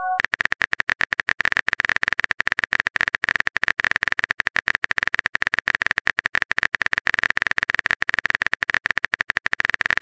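Phone keyboard typing sound effect from a texting app: a rapid, steady stream of small key-tap clicks, many each second, as a message is typed out.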